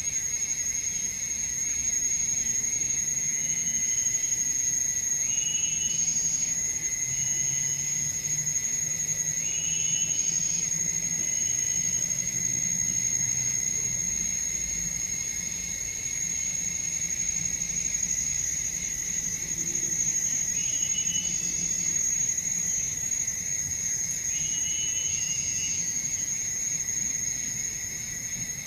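Insects in the forest keeping up a steady, high-pitched drone, with a short chirping call now and then, every few seconds.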